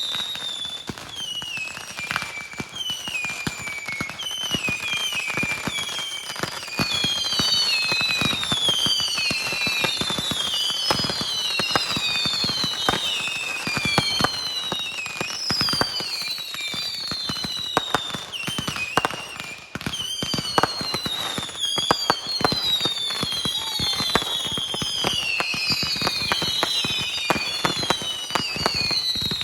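Fireworks going off: a dense run of bangs and crackles, with many high whistles falling in pitch overlapping throughout.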